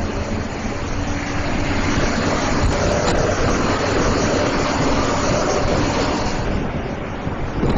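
Steady engine, tyre and wind noise inside a moving coach at highway speed, growing a little louder about two seconds in.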